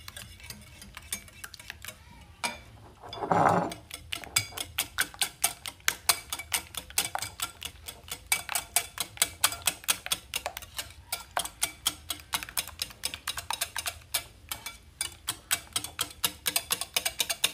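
Wire balloon whisk beating eggs and mayonnaise in a ceramic bowl: the wires click against the bowl rapidly and steadily, about four or five times a second. There is one louder, half-second noise about three and a half seconds in.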